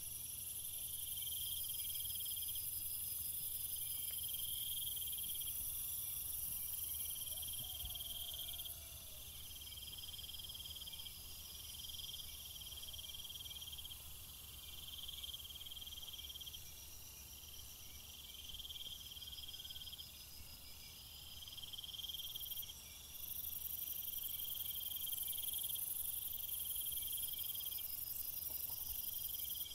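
Insects calling: a short trill repeating every second or two, over a higher, steady shrill that fades for a while in the middle and comes back near the end.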